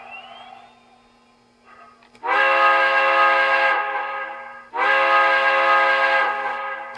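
Model steam locomotive's Proto-Sound 3 chime whistle (whistle #2), played through the locomotive's onboard speaker: two long blasts of about two seconds each, starting a little over two seconds in.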